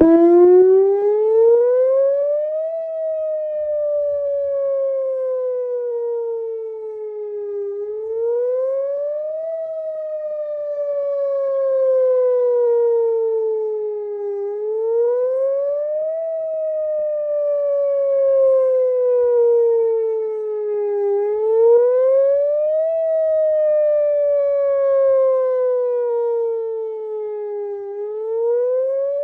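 Whelen Vortex R4 electronic outdoor warning siren sounding its wail. It starts up at once and climbs in pitch, then repeatedly glides down slowly over about five seconds and sweeps back up in under two, with its loudness swelling and fading. The uploader takes the sound for bad speaker drivers.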